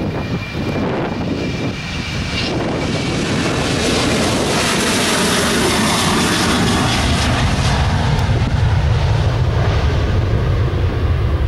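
Boeing 737-800's CFM56 jet engines at takeoff thrust during the takeoff roll and liftoff. A faint high whine early on gives way to a loud, growing roar, with a deep rumble building in the second half as the jet rotates and climbs away.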